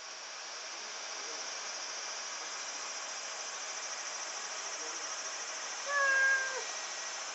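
A cat meows once near the end, a short call that drops in pitch as it ends, over a steady high hiss.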